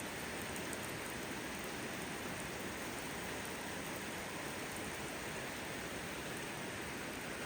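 Steady rainfall, an even hiss of rain that holds constant with no letup.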